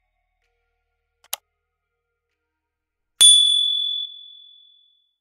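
Sound effect of an animated subscribe button: a single short mouse click, then about two seconds later one bright notification-bell ding that rings out and fades over about a second and a half.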